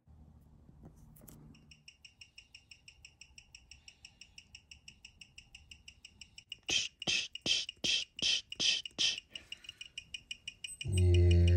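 Escapement ticks of a Seiko 4R57A automatic movement beating at 21,600 per hour (six ticks a second), amplified through a timegrapher's speaker. The even ticks belong to a freshly oiled movement running with healthy amplitude and zero beat error. The ticks grow much louder for a few seconds past the middle, and a low hum comes just before the end.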